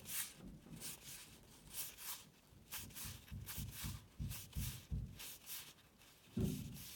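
Baseball trading cards being flipped one by one in the hand, each card sliding off the next with a short papery swish, about two to three a second. There is a short low sound about six and a half seconds in.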